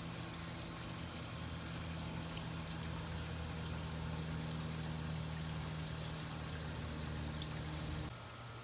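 Steady low machine hum under an even hiss, which drops suddenly to a quieter hum near the end.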